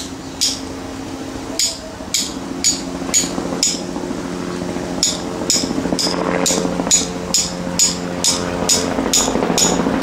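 Hammer blows on a masonry drill bit used as a drift, metal on metal with a short bright ring, about two strikes a second with a brief pause near the middle, driving the old wooden handle out of a 12-pound sledgehammer head. A steady low hum runs underneath.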